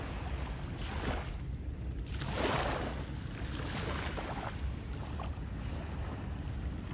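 Wind buffeting the microphone with a low rumble, over the hiss of harbour water lapping at the shore. A louder rush of noise comes about two and a half seconds in.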